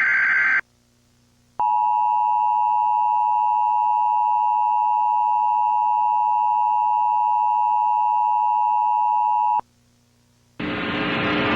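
Emergency Alert System tones for a tornado warning: the tail of a shrill digital header burst, then about a second later the steady two-tone attention signal for about eight seconds, cutting off sharply. About a second after it, a loud noisy hiss starts near the end.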